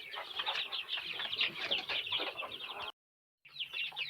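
Chickens calling and clucking, many short falling calls overlapping. The sound cuts out for about half a second near the end.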